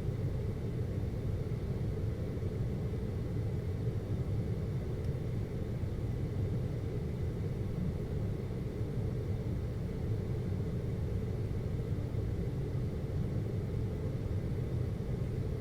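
Air conditioner running with a steady low hum and a faint high whine.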